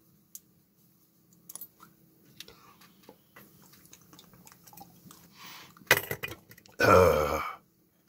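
A man taking a swig of rum from a small glass bottle: faint clicks as the cap comes off and the bottle is handled, a sharp knock about six seconds in, then a short, loud throaty vocal sound as he reacts to the drink near the end.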